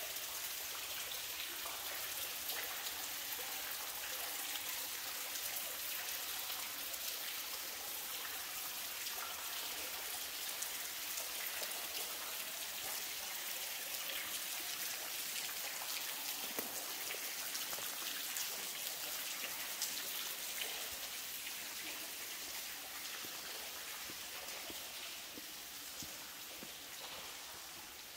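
Water from a tall cave waterfall coming down as drops and spray, pattering steadily on rock like rain; it grows fainter over the last few seconds.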